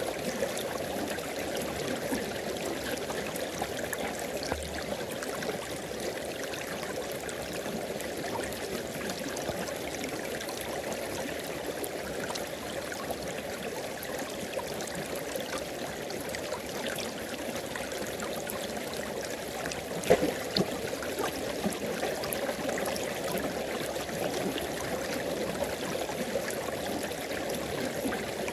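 River water flowing and gurgling steadily over rocks, with one brief louder splash about twenty seconds in.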